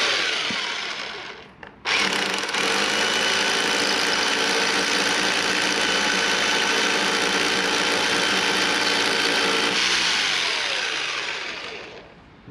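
A power tool running hard underground: a short burst that dies away, then about eight seconds of steady running before it winds down.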